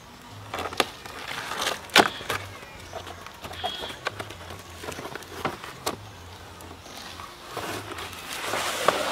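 Cardboard shipping carton being opened by hand: scattered knocks, taps and scrapes of the cardboard flaps, then a longer rustling rub of cardboard near the end as hands work inside the box.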